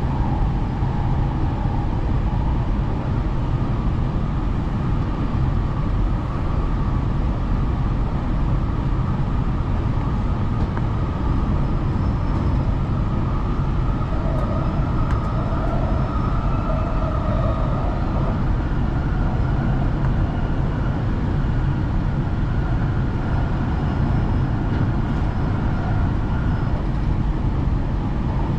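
Alstom Metropolis metro train running steadily at about 85 km/h: a constant deep rumble of wheels on rail, heard from inside the train, with faint whining tones above it.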